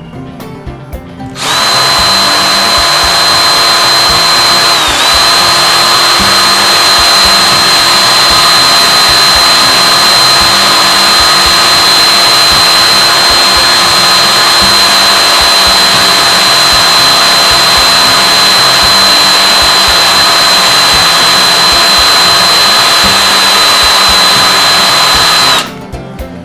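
High-speed wire wheel switching on about a second in and running steadily with a high whine, brushing oxidised copper wire ends clean before soldering. The whine dips briefly about five seconds in as the wire is pressed against it, and the wheel cuts off near the end.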